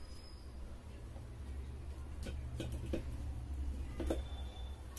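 Aluminium soft-drink cans being handled and set down on top of one another and on a table: a few light taps and clicks about two to three seconds in and again near four seconds.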